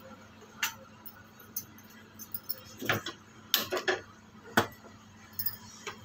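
Scattered sharp clicks and light metal clinks from handling at a gas stove and a steel mixing bowl, about half a dozen of them, bunched together about three and a half seconds in.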